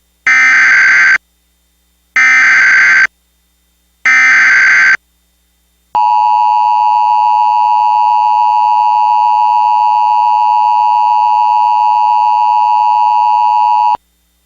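Emergency Alert System SAME header: three screechy digital data bursts, each about a second long and about two seconds apart. They are followed by the EAS two-tone attention signal, a steady dual-tone alarm held for about eight seconds that cuts off sharply. Together they mark the start of an emergency alert, here a flash flood warning.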